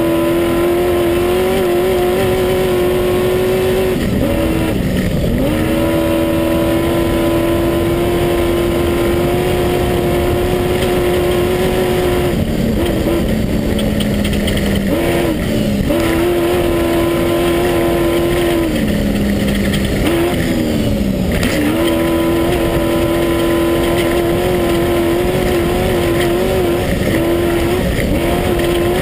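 Class 1 unlimited desert-race buggy's engine heard from inside the car, held at high, steady revs. The revs drop and climb back several times, once sinking to a lower note for a couple of seconds before picking up again, over a constant noisy rush.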